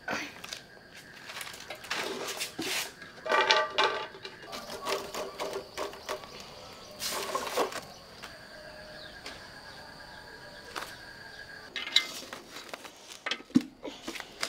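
Rustling and scattered soft knocks from handling leaf-wrapped bánh chưng and green leaf stems as they are laid into a large metal pot.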